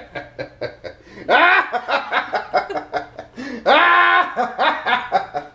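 Two people laughing: quick runs of giggles and chuckles, with two loud, high-pitched squeals of laughter about a second and a half in and about four seconds in.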